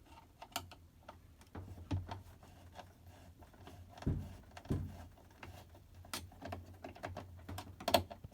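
Scattered light clicks and a few dull knocks of hand work on an LG washer's door lock as its second mounting screw is taken out, with a sharper click near the end.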